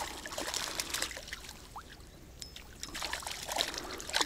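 Light splashing and trickling water with scattered small clicks and rustles.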